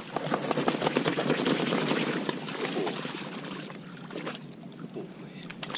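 Water splashing and dry marsh grass rustling close to the microphone, busiest in the first two or three seconds, then quieter, with a few sharp clicks near the end.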